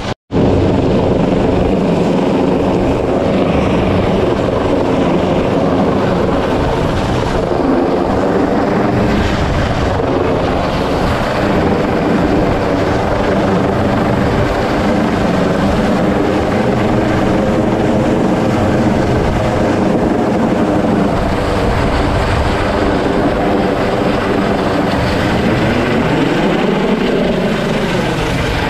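MH-65 Dolphin helicopter hovering close overhead during a basket hoist: steady, loud rotor and turbine noise with rotor wash. The sound drops out for an instant just after the start, and its pitch wavers near the end.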